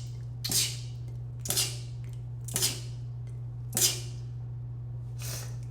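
A person sneezing in a rapid-fire series: four sharp, hissy sneezes about a second apart, then a fainter fifth near the end.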